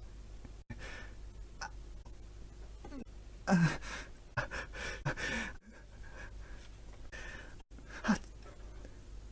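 A person breathing audibly: a few separate breaths and short voiced gasps and sighs. The loudest comes about three and a half seconds in, with a shorter one about eight seconds in.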